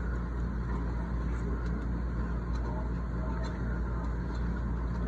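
Steady low background rumble and hum, with a few faint ticks.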